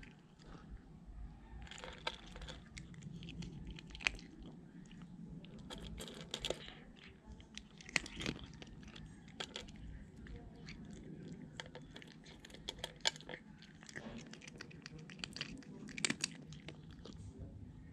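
A cat chewing dry kibble, with many quick, irregular crunches and a few louder ones scattered through.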